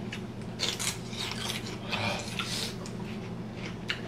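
Paper napkin rustling in a few short crinkles while food is handled at the counter, over a steady low hum.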